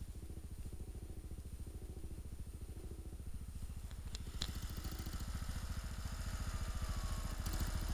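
Small off-road vehicle engine idling steadily, with an even low pulse that grows a little louder near the end. Two light clicks come about four seconds in.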